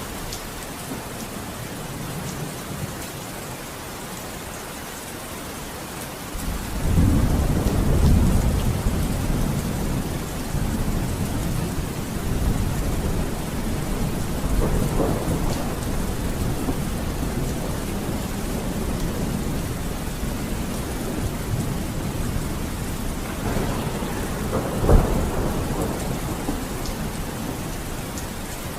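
Steady rain falling, with thunder rumbling in low and loud about six seconds in and rolling on, then a sharper thunderclap near the end.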